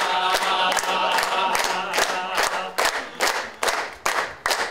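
A group of men singing a qawwali in unison over steady rhythmic hand clapping. About two-thirds of the way through the singing stops and the clapping carries on alone, about two to three claps a second.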